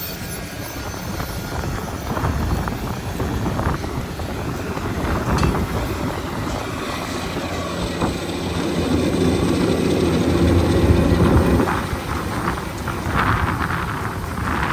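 New Holland T9.670 HD tractor's diesel engine working under load as it pulls a Bourgault air drill through the field, running with a steady drone. About eight seconds in a humming tone grows louder, peaks around eleven seconds, then falls away.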